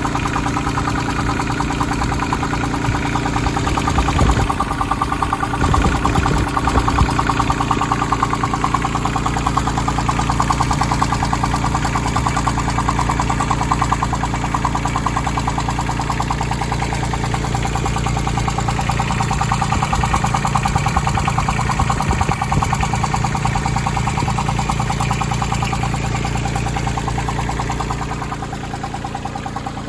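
Branson 2500h tractor's A1100 diesel engine running steadily, with a strange rhythmic knocking from the engine on a nearly new tractor. The owner first thought of the rocker arms but reckons loose valve clearances would sound different.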